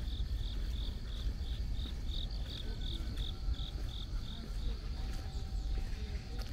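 An insect chirping in an even rhythm, about three short high chirps a second, stopping about four and a half seconds in, over a steady low rumble.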